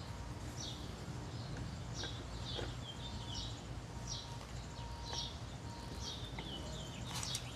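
Small birds chirping in short, repeated, downward-sliding notes over a steady low hum, with a couple of faint knocks as the rifle's action is set into its wooden stock.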